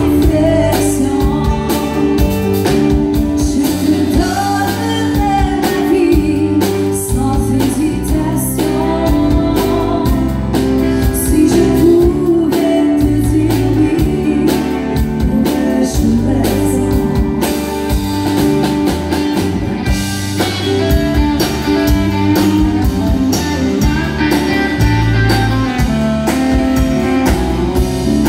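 Live country music: a woman singing, accompanying herself on acoustic guitar, backed by a band.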